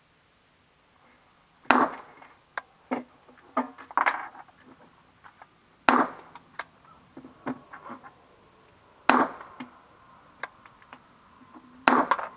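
HK MR556 5.56 mm rifle fired slowly for a group, four loud shots about three seconds apart, each followed by a short ringing echo, with fainter cracks and clicks between them.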